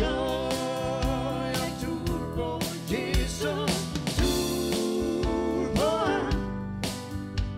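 A worship song: a voice singing a melody over instruments with a steady drum beat.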